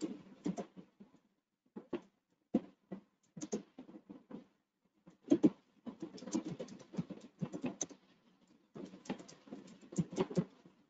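Irregular bursts of rustling and clicking in clusters, with short quiet gaps between them.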